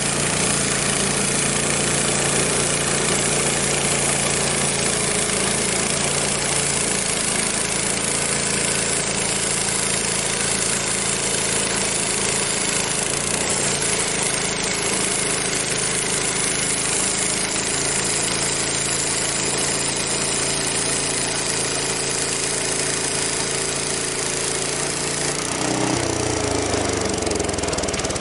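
Frontier OS23 bandsaw mill's gas engine running steadily at speed while the band blade saws through a maple log, with a dense hiss over the engine note. About 25 seconds in, the engine's pitch falls as it slows down.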